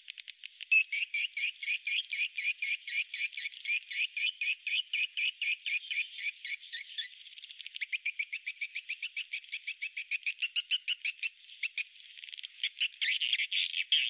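Edible-nest swiftlets twittering: a rapid, unbroken run of short high chirps, several a second, that grows louder and denser near the end. This is the swiftlet roosting call ('suara inap') used to draw the birds in to roost in a swiftlet house.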